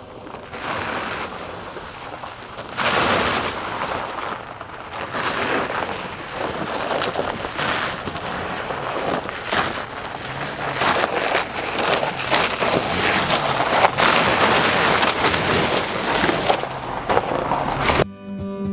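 Wind buffeting the microphone in uneven surges over a vehicle driving off-road, with a faint engine note underneath.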